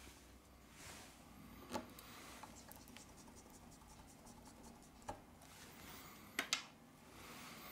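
Faint hand-handling noise from an opened Redmi Note 8 smartphone during reassembly: soft rubbing and scratching with a few small clicks, the loudest two close together near the end.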